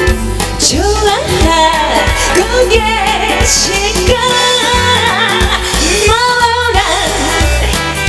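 Korean pop-song music playing through a stage PA: a steady bass beat under a melodic lead line that bends and wavers in pitch.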